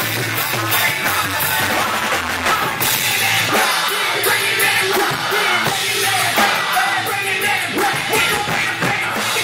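Loud live band music with a vocalist singing into a microphone over it.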